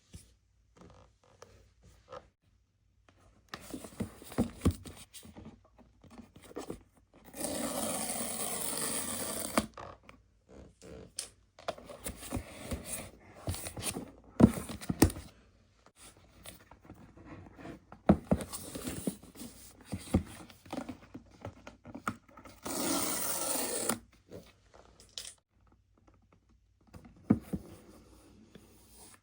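Product boxes being unwrapped and opened: packaging scraping and rustling with scattered taps and clicks, and two longer steady ripping sounds, one about two and a half seconds long and a shorter one near the end.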